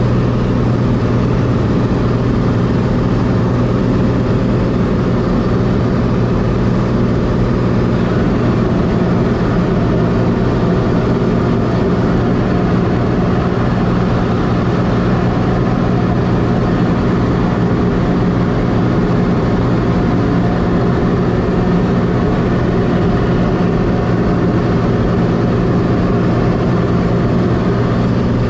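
Steady, unchanging engine drone with a loud low hum and no change in pitch.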